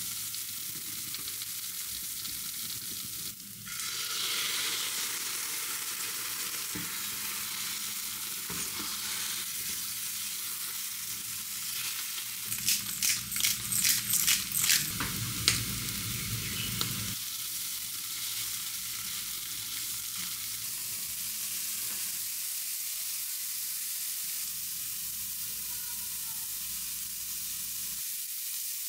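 Onions and egg sizzling and frying in a ceramic-coated frying pan, stirred with a spatula. About halfway through, a pepper grinder is twisted over the pan, making a quick run of clicks for about three seconds.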